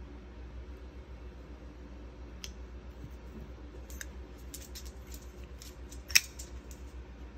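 Kizer Megatherium folding knife, titanium handle and M390 blade, being flipped and closed in the hand: its blade and lock give a run of short metallic clicks, with one sharp snap about six seconds in, the loudest of them.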